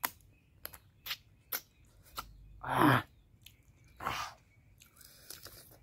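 Close-up eating sounds of chicken curry being eaten by hand: wet chewing with a run of short mouth clicks and lip smacks. About halfway through comes a short, loud vocal sound, and another shorter one about four seconds in.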